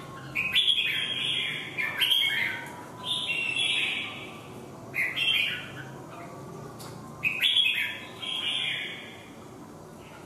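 Caged red-whiskered bulbuls singing against each other. There are five short, bright song phrases of quick chirping notes, with pauses between them, the last and longest about eight seconds in.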